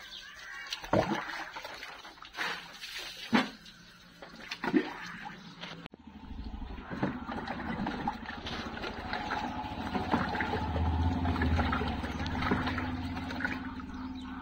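Water thrown from a mug splashing onto the tractor and the wet concrete, four or five separate splashes. About six seconds in this gives way to water sloshing and trickling in a plastic tub as air-cleaner parts are washed by hand, with a low steady hum underneath.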